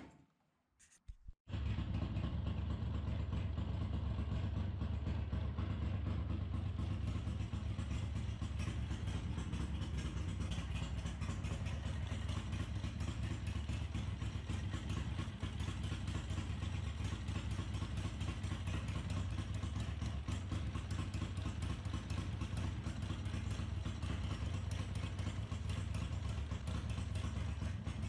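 A few clicks, then about a second and a half in a bevel-drive Ducati V-twin engine starts running and keeps running steadily.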